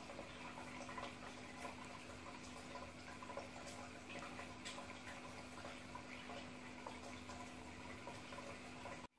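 Faint, steady crackling noise with small scattered clicks over a low steady hum, cutting off suddenly near the end.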